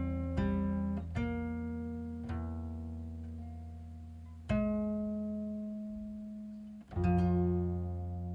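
Slow background music on a plucked string instrument, with single notes and chords struck a second or two apart, each left to ring and fade.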